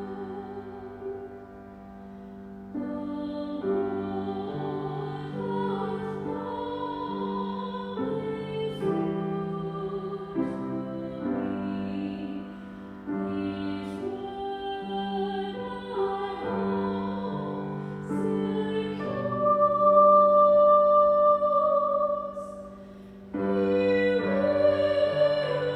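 Slow, gentle music: a solo melody of sustained notes over piano accompaniment, with one long held note about three-quarters of the way through.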